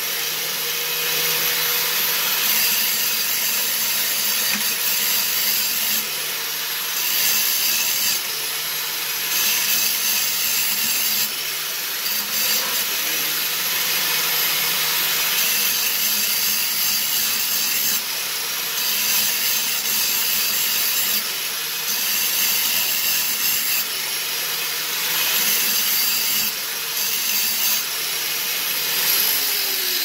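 Electric power tool grinding metal off the output shaft of a 5 hp flathead engine so that a part will slide on. The motor runs steadily while the grinding noise swells and eases. Near the end it is switched off and spins down with a falling pitch.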